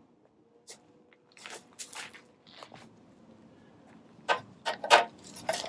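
Close handling noises as a small Advent wreath is lifted and held up: scattered clicks, rustles and light knocks of its greenery and tea-light candles, with the loudest knocks coming about four to five seconds in.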